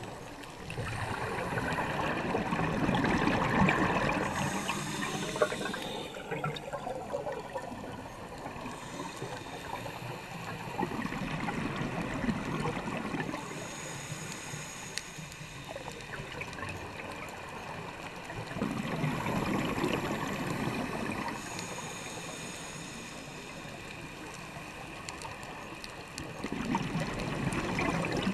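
Scuba regulator exhaust bubbles heard underwater: a gurgling rush of bubbles swells up about every eight seconds, four times, with each exhaled breath, over a steady underwater hiss.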